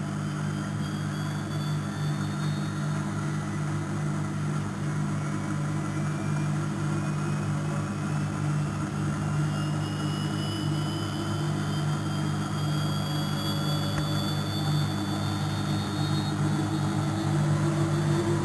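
Neff washing machine spinning, on a test spin toward 1000 rpm: a steady low hum with a motor whine that rises slowly in pitch over several seconds as the drum speeds up.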